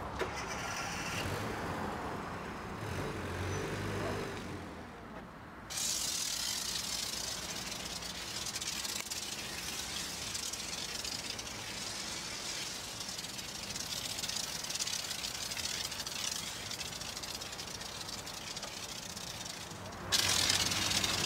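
Pressure-washer foam lance spraying snow foam over a truck's engine bay: a steady hiss that starts abruptly about six seconds in and turns louder near the end.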